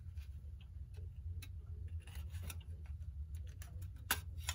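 Light, irregular clicks and taps of small parts being handled as a mantel clock's dial is worked loose and lifted out, with one sharper click near the end.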